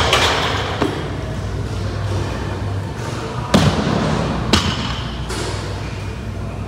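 Thuds from a block snatch with a barbell loaded with bumper plates on wooden boxes, as the bar is lifted, the lifter's feet land in the catch, and the bar is set back down on the boxes. There is a sharp thud right at the start and a light knock under a second in, then two heavy thuds about three and a half and four and a half seconds in, and a lighter one just after.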